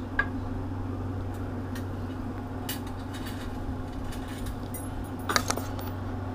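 Light taps and clicks of small objects on a glass tabletop, with a short cluster of sharper clicks about five seconds in, over a steady low electrical hum.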